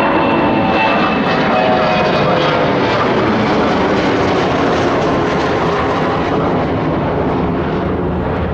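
Loud, steady jet noise from a Boeing 737-800 airliner's CFM56 turbofan engines as it passes close by on arrival, with a faint whine that falls in pitch as it goes by.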